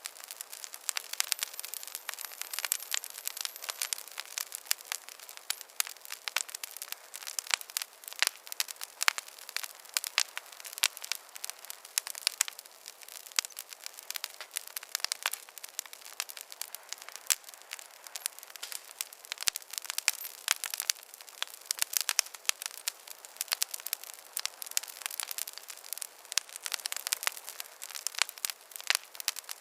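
Campfire crackling: dense, irregular snaps and pops of burning wood, several a second, over a faint hiss.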